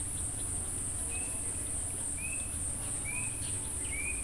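Insects keeping up a steady, high-pitched unbroken drone, with a bird repeating a short rising whistle about once a second, over a low rumble.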